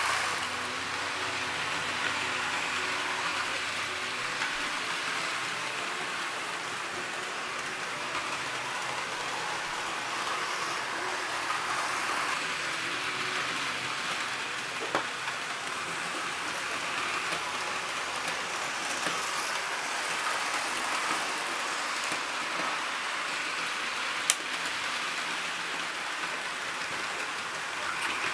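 Several Hornby OO-gauge model trains running together round a layout: a steady whirr of small electric motors and wheels rolling on the track, with a few sharp clicks, the loudest about three-quarters of the way through.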